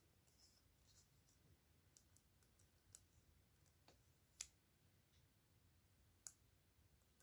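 Faint, scattered clicks and taps of fingers handling a small plastic toy figure and its stickers, the two sharpest about four and a half and six seconds in, against near silence.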